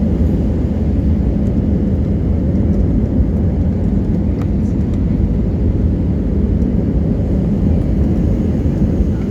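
Airbus A320 cabin noise in flight: a steady low rumble of engines and airflow.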